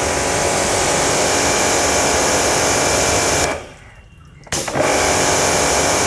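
QPT by StarQ QT-30 commercial pressure washer running with the gun's trigger held, its motor and piston pump at full pressure of about 200 bar and the water jet spraying steadily. A little past halfway the sound drops away for about a second, then comes back suddenly.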